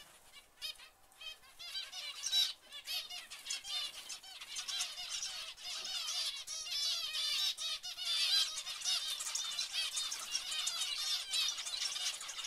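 A flock of zebra finches calling: many short, overlapping calls, scattered at first and then a dense chattering chorus from about four seconds in.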